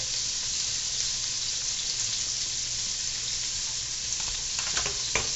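Chicken pieces frying in sausage fat in a hot pan: a steady sizzle, with a few light clicks near the end.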